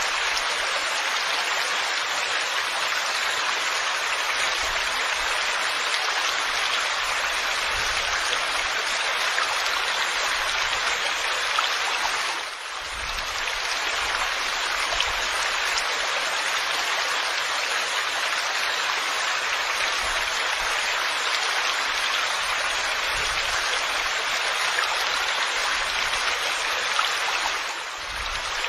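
Steady heavy rain falling, a dense even hiss that dips briefly twice.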